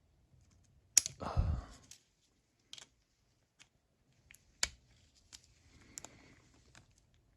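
Small sharp metal clicks and short scrapes of a tool working at the snap ring in an SK push-button ratchet head, trying to get a grip on the ring, with the loudest click about a second in.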